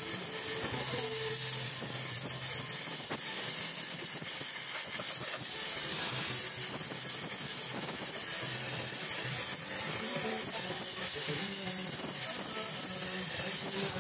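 Gas welding torch flame hissing steadily while aluminium filler rod is melted into a motorcycle crankcase.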